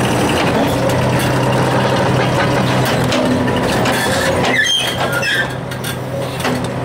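Excavator diesel engine running steadily under load while an NPK SV500 dual-cylinder hydraulic crusher works into reinforced concrete, with repeated cracking and crunching of concrete. About two-thirds of the way in there are a few short high squeals.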